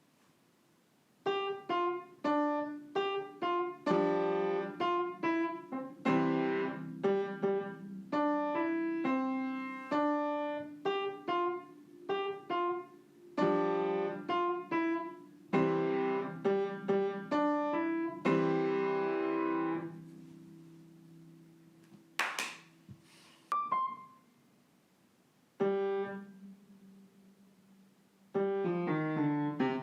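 Piano playing a short, simple tune note by note, running on for about twenty seconds, then trailing off into a few scattered notes with pauses and a single knock.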